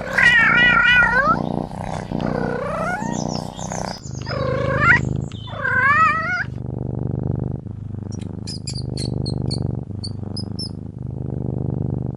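A domestic cat meowing four times, each call wavering in pitch, over a steady low purr; later, a string of short high chirps.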